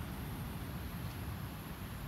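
Steady low rumble with a faint hiss: outdoor background noise, with no distinct event standing out.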